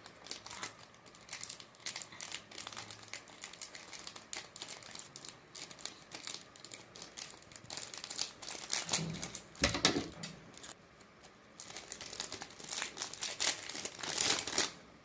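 Packaging crinkling and rustling in handfuls of short crackles as a small packet is torn and worked open by hand, with a louder crackle about ten seconds in and a run of louder ones near the end.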